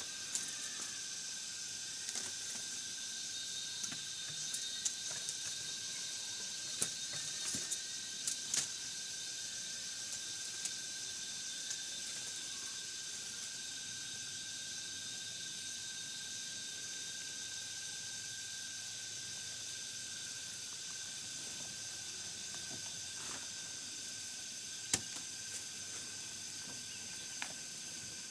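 Steady high-pitched buzzing of forest insects, several unchanging shrill tones held together, with scattered light knocks and taps as bamboo and wood are handled, a cluster of them in the first third and a sharper single knock near the end.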